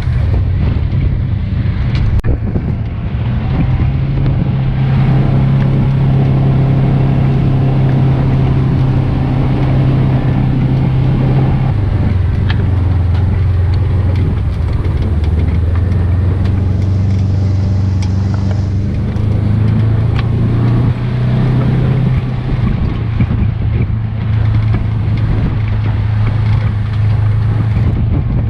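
A vehicle engine running steadily while driving across a pasture. Its pitch drops about twelve seconds in and rises again near twenty seconds.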